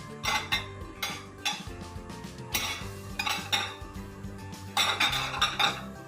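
Dishware clinking and knocking as bowls and plates are handled and set down on a shelf, in several short bunches of clinks, with steady background music underneath.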